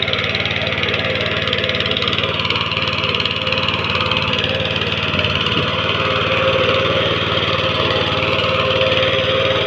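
Engine of a rotary tiller running steadily, with an even firing rhythm.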